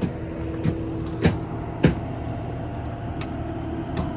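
Forestry mulcher machine's engine running steadily with a held hum, while about half a dozen sharp knocks and clicks come at irregular intervals.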